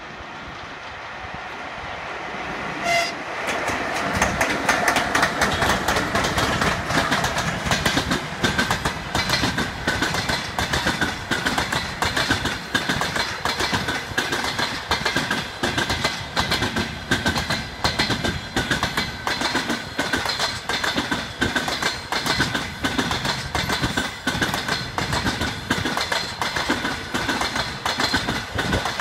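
Passenger train hauled by a ChS7 twin-section electric locomotive passing close by: the noise swells as it approaches, a short whistle blast sounds about three seconds in, and then the coaches' wheels clatter rapidly over the rail joints, with a steady ringing note above the clatter.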